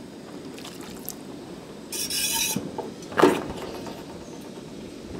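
Metal utensils handled around a stainless steel pan: a short hiss about two seconds in, then a sharp metallic clank a second later, over a steady low rumble.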